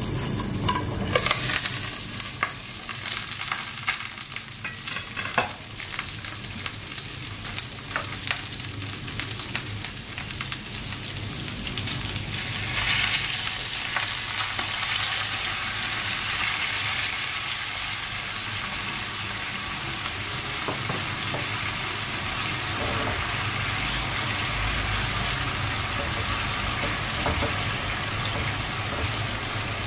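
Pork belly cubes sizzling in oil and sauce in a wok, with a few sharp clicks and scrapes from a spatula stirring them.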